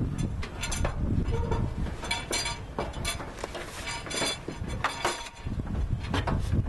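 Irregular clicks, clinks and knocks of a car's side body panel and hand tools being handled as the panel is fitted back into place, over a low rumbling noise.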